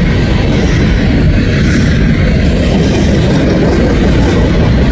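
Union Pacific freight train's cars rolling past close by: a loud, steady rumble of steel wheels on rail.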